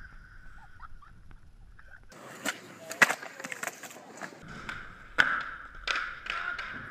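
Skateboard riding and tricks: wheels rolling, with a series of sharp clacks and landings from the board, the loudest about three seconds in and more near the end.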